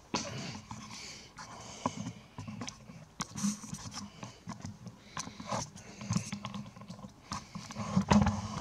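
Footsteps scuffing on a gritty concrete garage floor, with scattered light clicks and knocks. About eight seconds in there is a louder cluster of knocks as the camera is picked up and handled.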